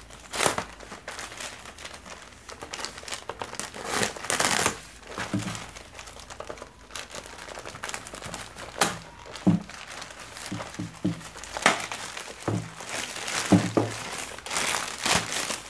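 Plastic courier mailer being slit open with a knife blade and pulled apart: crinkling plastic with irregular tearing and sharp snaps.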